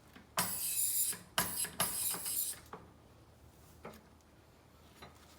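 Rattling and clicking of a stuck mechanism being worked by hand: three short bursts in the first three seconds, then one faint click about a second later.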